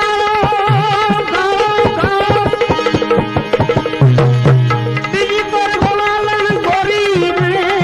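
Gujarati devotional bhajan music: tabla strokes under a wavering melody line, with a long bass-drum tone about halfway through.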